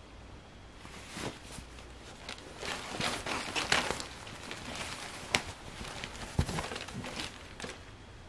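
Denim pants being handled: the stiff cotton fabric rustles and brushes irregularly as hands turn and fold the legs and cuff, starting about a second in, with a sharp click past the middle and a soft knock soon after.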